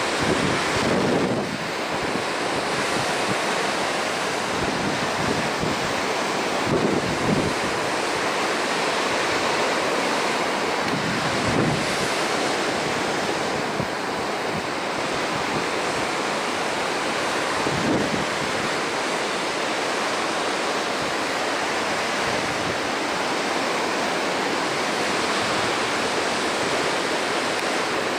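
Ocean surf breaking and washing in white water, a steady rush of noise, with a few low buffets of wind on the microphone.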